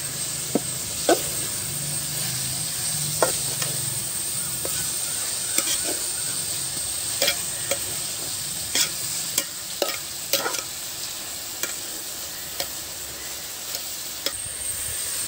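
Sliced onions frying in coconut oil with a steady sizzle, while a steel spoon stirs them and scrapes and clicks irregularly against the metal pan.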